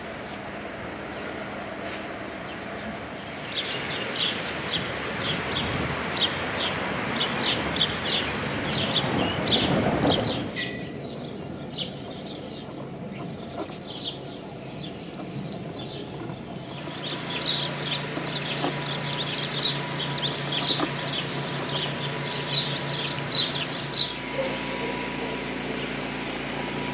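Small birds chirping, many quick high calls one after another. Under them a rushing noise swells to its loudest about ten seconds in and stops abruptly. The chirping then breaks off and resumes about seventeen seconds in.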